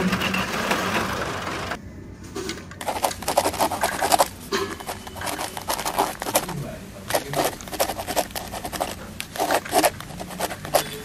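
Fresh pea pods being handled and dropped into a plastic toy truck's cargo bed: irregular rustling, scraping and light plastic clicks. It opens with nearly two seconds of even hiss.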